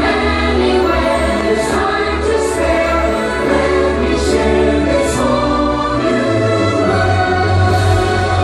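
Fireworks show soundtrack: a choir singing over orchestral music, with a deep held bass.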